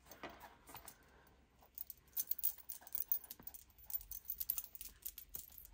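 A stuffed leather traveler's notebook with a pen and small metal charms attached being handled. It gives faint, irregular clicks, taps and light rattles that grow busier from about two seconds in.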